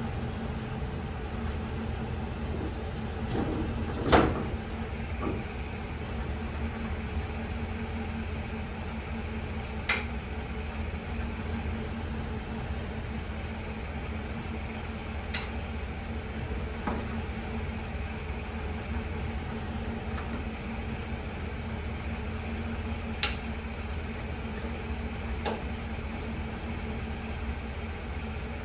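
Steady low hum, with a few sharp metallic clicks and knocks as the snowplow's mount hardware and connectors are handled; the loudest knock comes about four seconds in.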